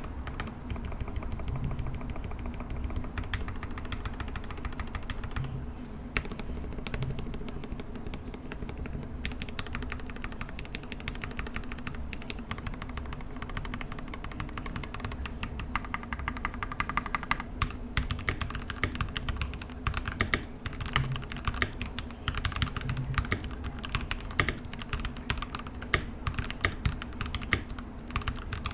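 Continuous fast typing on a Skyloong GK75 75% mechanical keyboard with lubed Gateron Pro Red linear switches and ABS keycaps: a dense run of keystroke clacks that get louder and sharper a little over halfway through.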